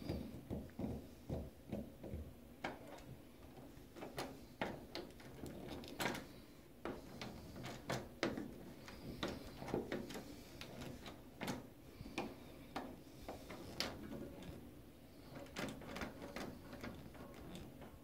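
Brass-finish doorknob being turned and jiggled by hand, its latch and knob clicking and rattling in irregular bursts of a few clicks a second.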